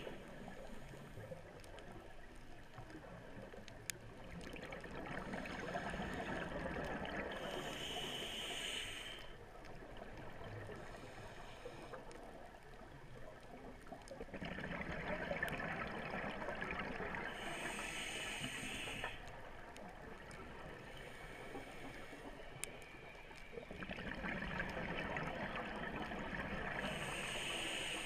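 Scuba diver breathing through a regulator underwater: three slow breaths about ten seconds apart, each a long swell of exhaled bubbles gurgling upward with a hissing inhalation through the regulator.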